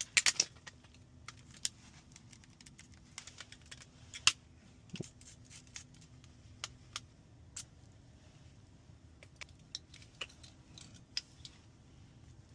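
Small metal tools and phone parts clicking and tapping during hands-on iPhone disassembly: scattered sharp clicks, a quick cluster at the start and a louder single click about four seconds in.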